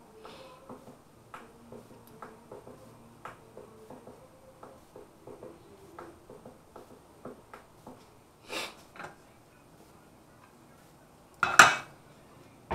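Stainless steel frying pan heating with oil on a gas stove, giving light scattered ticks. About eleven and a half seconds in, the pan clatters loudly as it is shifted on the burner grate.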